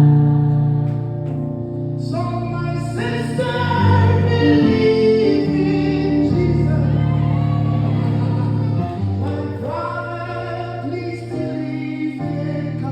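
Gospel singing by a vocal group over a sustained low instrumental accompaniment, the voices coming in fuller about two seconds in and holding long notes.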